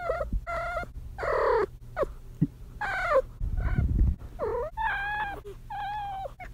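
Kitten trilling repeatedly: a string of about eight short chirruping calls, several falling in pitch. She is in heat.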